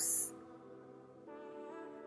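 Soft background music of sustained chord tones, moving to a new chord about halfway through.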